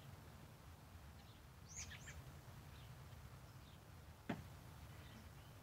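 A single sharp crack about four seconds in, from a shot of a big-bore air rifle at partial power, heard at the target end. A few short bird chirps come about two seconds in, over a steady low rumble.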